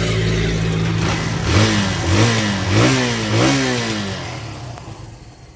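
Kawasaki Barako 175 single-cylinder four-stroke motorcycle engine, just started from cold with one press, idling steadily and then revved up and down about four times in quick succession before the sound fades out near the end.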